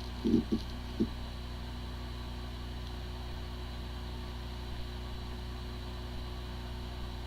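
Steady low electrical hum made of several constant tones, with a few brief low sounds about half a second and a second in.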